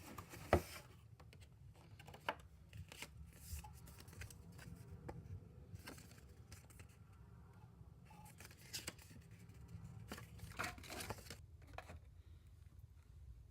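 Packaging being handled and opened by hand: rustling and tearing with scattered clicks, a sharp click about half a second in, going quiet near the end.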